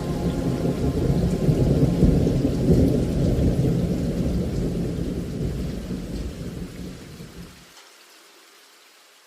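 Thunderstorm: rain falling with a long roll of deep thunder that swells about two seconds in and then dies away. The deep rumble cuts off sharply near the end, leaving faint rain hiss.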